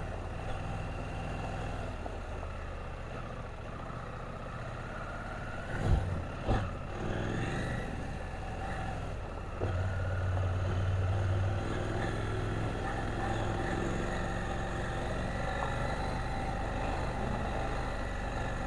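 KTM 790 Adventure motorcycle's parallel-twin engine running steadily as it is ridden along a rough dirt trail. Two sharp knocks come about six seconds in, and the engine gets louder around ten seconds in.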